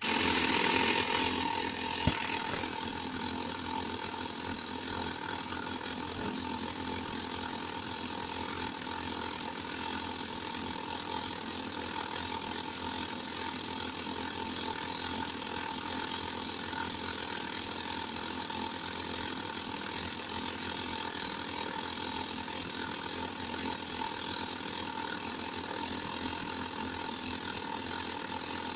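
IBM Model C electric typewriter winding its ribbon from one cartridge to the other, its feed mechanism ratcheting on without a break over the steady hum of the running machine.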